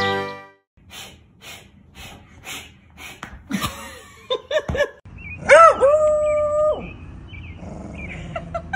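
A series of soft taps, about two a second, then a dog's short whines and a held howl lasting about a second.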